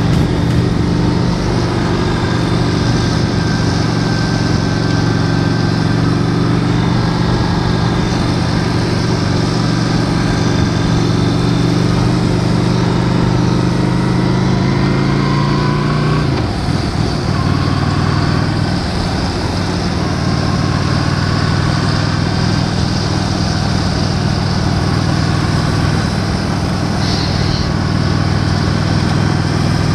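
Honda Shadow 750 V-twin engine running steadily under way, with wind noise on the microphone. About halfway through, the engine note falls sharply, then settles into a steady note again.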